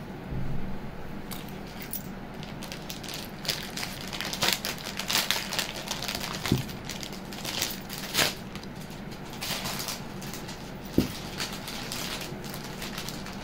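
Jewellery being handled and laid out: a run of small clicks, clinks and rustles, with two sharp knocks, one midway and one near the end.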